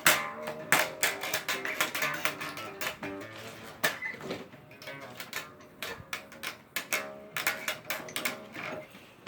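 Music with a plucked guitar sound, over frequent sharp clicks and knocks.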